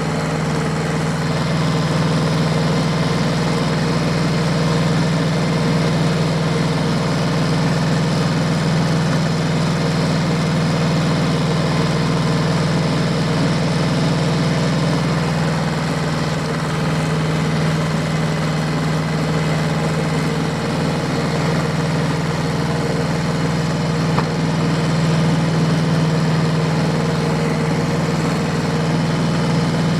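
A diesel tractor engine running at a steady speed, a constant low drone that holds the same pitch throughout.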